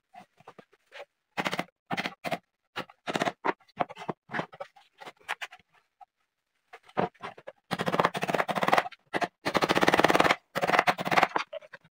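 Ball-peen hammer driving small nails through the edge of a white-laminated plywood panel: scattered single taps at first, then a fast run of heavy blows in the second half.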